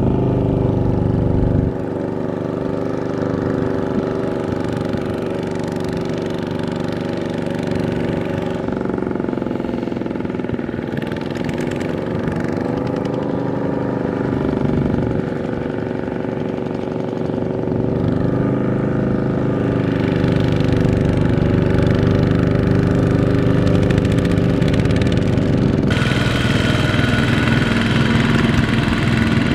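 Kubota walking tractor's single-cylinder diesel engine running under load while towing a loaded trailer through mud, its pitch sagging and recovering twice. A few seconds before the end the sound changes abruptly to a brighter, noisier engine sound.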